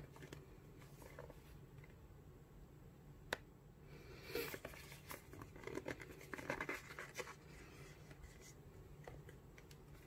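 Cardboard Zippo gift box handled and opened by hand: faint scraping and rubbing of the box, a sharp tap about three seconds in, then a busier run of scrapes from about four to seven seconds as the lid slides off.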